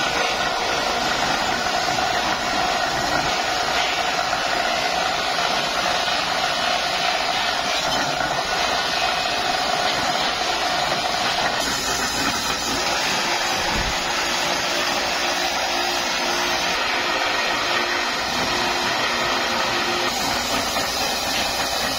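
Abrasive wheel on a long motor-driven spindle running steadily while the edge of a steel tray is held against it: a continuous whirring hiss with a steady whine.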